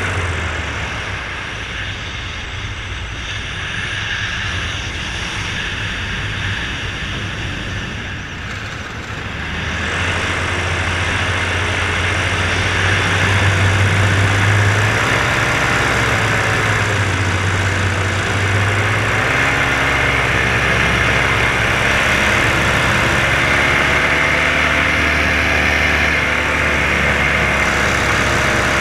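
Polini two-stroke paramotor engine running in flight. It is throttled back for the first several seconds, then opened up again about ten seconds in, and its pitch wanders up and down as the throttle is worked.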